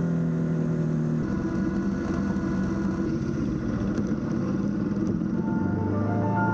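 Motorcycle engine running as the bike rides along, a rough, steady sound that sits low in pitch. Traces of background music linger for the first second and return near the end.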